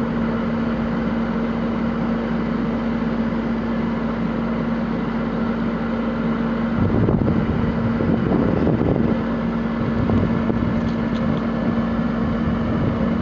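A fire engine's engine running steadily at constant speed, a continuous drone with a fixed hum. About seven seconds in, a deeper, uneven rumble joins it.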